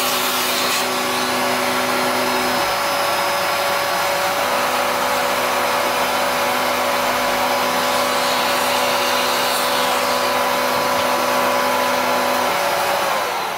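Vacuum cleaner running steadily with a whine, sucking wood chips off a freshly CNC-milled plywood part. About a second before the end it is switched off and its motor winds down, the whine falling in pitch.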